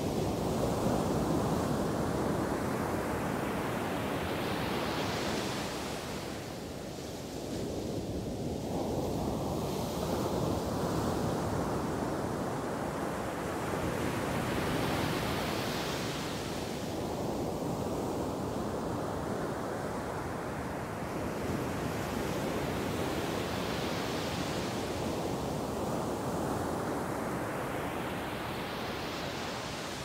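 Ocean surf: waves breaking on a beach, one about every ten seconds, each a rising rush of hiss that fades back into a steady low wash.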